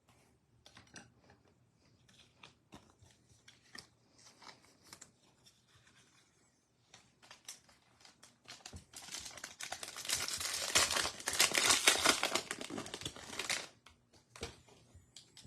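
Trading cards and packaging being handled, with light rustles and clicks, then a Topps Update card pack's plastic wrapper crinkling and tearing open for about four seconds, starting about nine seconds in.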